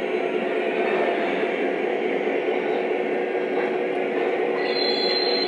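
Lionel O-gauge model trains running on three-rail track: a steady whir and rumble of the motors and wheels, with a thin steady hum underneath.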